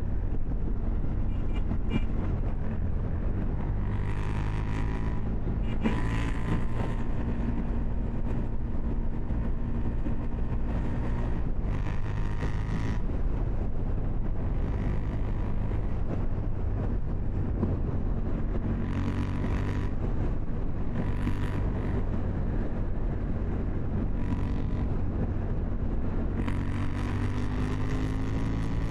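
KTM 790 Duke's parallel-twin engine running at a steady pitch, with repeated rushes of noise, each lasting about a second.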